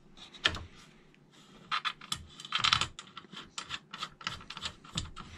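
Irregular light clicks and taps of a small metal bolt and nut being fitted by hand into the plastic handle of a Kreg straight edge guide's aluminium rail, thickest about two to three seconds in.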